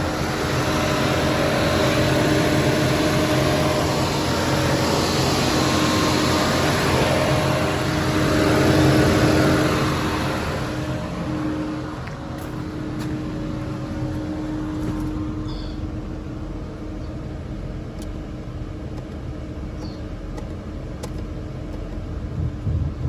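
2012 Chevy Cruze engine idling with the heater blower on full heat, its air rush over a steady engine hum; about halfway through the rush drops away, leaving the idle. The engine is running after a coolant refill to bleed air from the cooling system.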